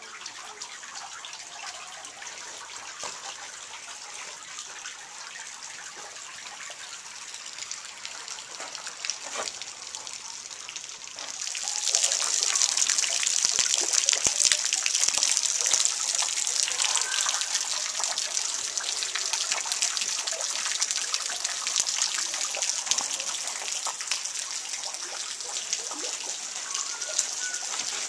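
Water dripping and splashing from a rock overhang into a shallow pool: a steady hiss of many falling drops that becomes much louder about twelve seconds in.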